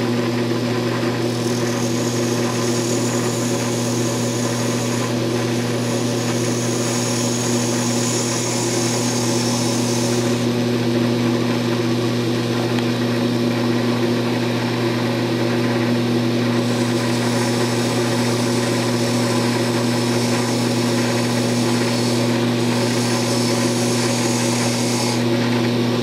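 Wood lathe running steadily with its electric motor hum while a parting tool cuts a groove into the spinning wooden handle, a scraping hiss in two long spells, from about one to ten seconds in and again from about seventeen to twenty-five seconds.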